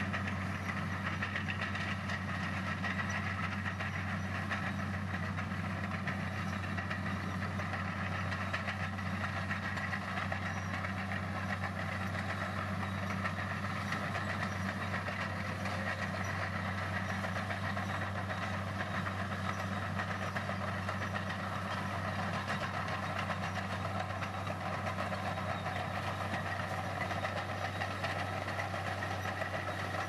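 Komatsu bulldozer's diesel engine running with a steady, unchanging low hum.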